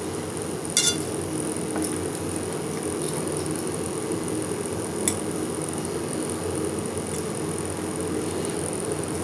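Eating sounds during a meal, with a few short clicks and clinks, the loudest about a second in and smaller ones near two, five and seven seconds. A steady low hum runs underneath.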